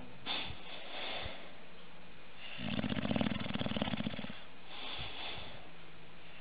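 English bulldog snoring in its sleep, a loud drawn-out snore about two and a half seconds in, with softer snoring breaths before and after.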